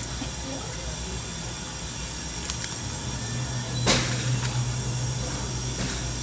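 Steady background hum, with one sharp crunch about four seconds in as a bite is taken into a fried chicken sandwich topped with crunchy Cheetos.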